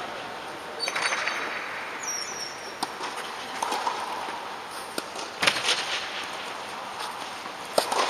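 Indoor tennis hall ambience: a steady background rush with a few sharp knocks that echo under the dome, and a brief high squeak about two seconds in.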